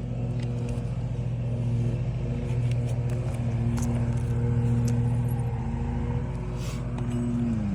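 A motor hums steadily at one pitch, then winds down in pitch near the end, with a few faint clicks and scrapes of hand work on the shingles.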